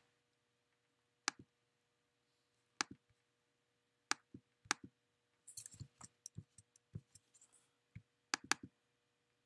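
Clicks of a computer mouse and keyboard: single sharp clicks a second or so apart, a quicker run of lighter clicks in the middle, and a close pair near the end.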